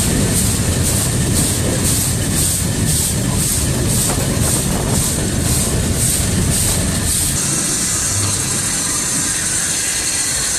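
Small 1925 steam shunting locomotive running, heard from inside its cab: a rhythmic chuff of exhaust steam about twice a second over a low rumble. Both stop about seven seconds in, leaving a steady hiss of steam.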